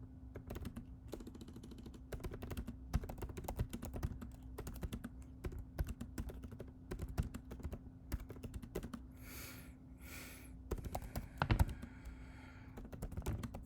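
Typing on a computer keyboard: a fast, uneven run of keystrokes, broken near the end by two short breathy hisses. A faint steady hum lies underneath.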